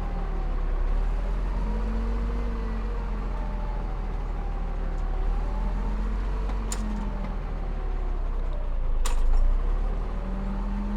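Heavy diesel earthmoving machinery running, its engine pitch rising and falling with load, with a low rumble throughout and two sharp metallic clicks partway through.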